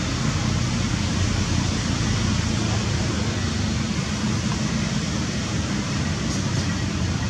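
Steady rushing outdoor background noise with a low rumble underneath. No distinct calls or knocks stand out.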